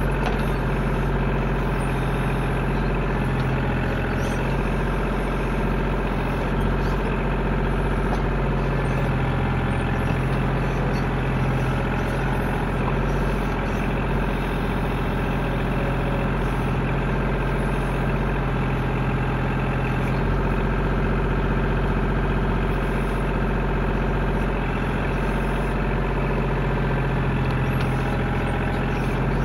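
Tractor engine running at a steady speed, with no revving or change in pitch.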